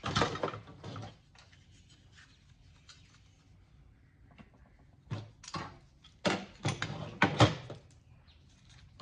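Metal parts of an audio equalizer being pulled apart and handled: a clatter right at the start, a quiet pause, then a run of about six sharp knocks and rattles in the second half.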